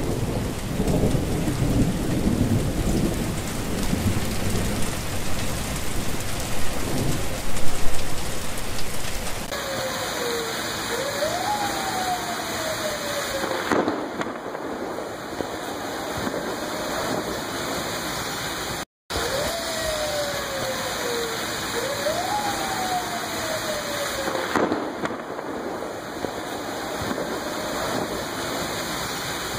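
Heavy rain pouring steadily, with a low rumble of thunder through the first several seconds that is loudest about eight seconds in. Later a faint tone glides up and down twice over the rain, and the sound cuts out for a moment about two-thirds through.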